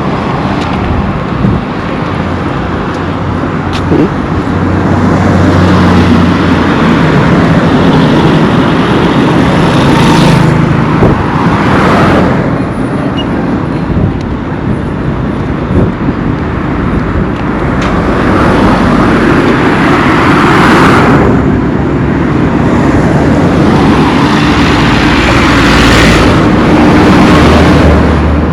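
Road traffic: cars and other motor vehicles passing close by one after another over a steady engine rumble, each pass swelling and fading, with the strongest passes about a third of the way in, near the middle of the second half and near the end.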